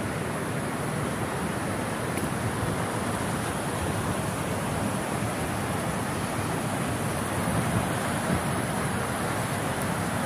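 Steady rushing of a flood-swollen river, an even noise with no breaks.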